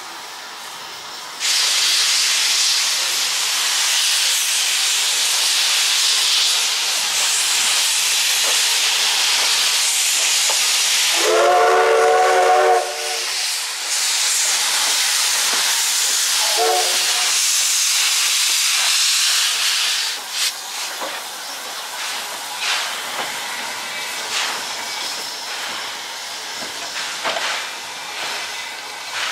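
Steam locomotive blowing off steam in a loud, steady hiss, the jet escaping low from its cylinder drain cocks. A short steam whistle blast sounds about midway, and a brief second toot comes a few seconds later. The hiss stops about two-thirds through, leaving softer, irregular sounds.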